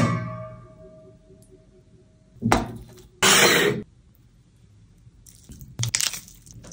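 A stainless steel pot lid is set down on a metal pot with a knock and rings, fading over about two seconds. About two and a half seconds in comes a short noisy burst, then a louder wet squish lasting about half a second as a piece of tandoori chicken is dunked into green chutney. Near the end there are softer crackly rustles as the roasted chicken is pulled apart.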